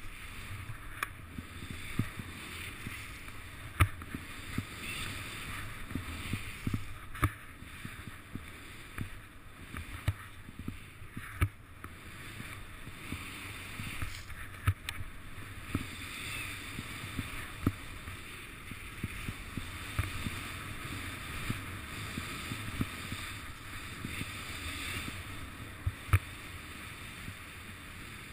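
Skis running through powder snow, a steady hiss broken by frequent, irregular sharp knocks.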